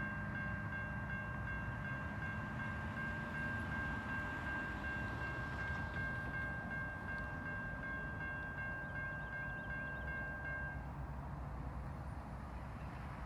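Distant train horn held on one long steady note for about eleven seconds, then cutting off, over a low steady rumble.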